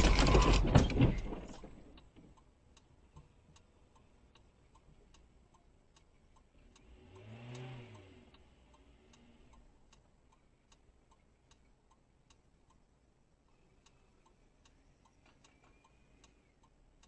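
Car collision: a loud crunch of impact that dies away over about two seconds. It is followed by faint steady ticking about twice a second, with a car engine briefly revving up and back down about halfway through.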